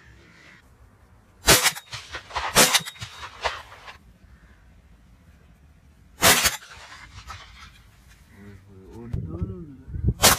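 A series of five short, sharp bangs, irregularly spaced a second to four seconds apart: three in the first few seconds, one about midway and one at the very end.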